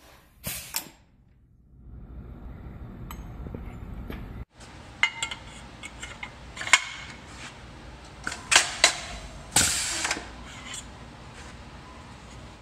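Double-horizontal tube and extrusion punching unit at work: a series of sharp metallic snaps as the punches go through aluminium extrusion, with clinks of the metal part being handled and a longer noisy burst near the end of the run.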